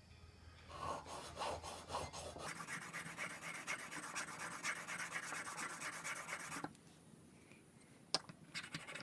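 Steel chisel bevel being honed on a whetstone: rapid back-and-forth rubbing strokes for about six seconds, touching up an already sharp edge. The strokes stop, and a few light clicks follow near the end.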